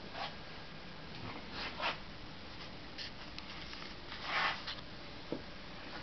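Faint steady hiss with a few soft scuffs and clicks, and a brief louder rustle a little past four seconds in.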